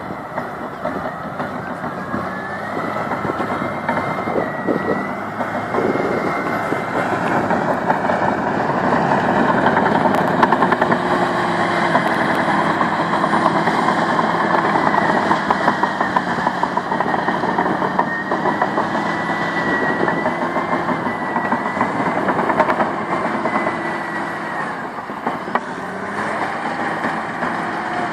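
Caterpillar D6M bulldozer working: its diesel engine running under load with the steel tracks clanking continuously, and a high squeal over it. The sound grows louder through the middle and eases off toward the end.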